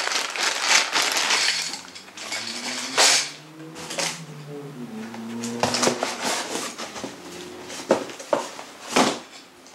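Clear plastic bag of grey plastic shelving parts crinkling as it is handled, then hard plastic pieces knocking and clicking against each other in several separate clacks.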